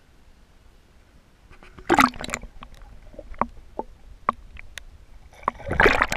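Pond water splashing as the camera goes under the surface about two seconds in, then scattered sharp clicks and bubbling heard underwater, and another burst of splashing near the end.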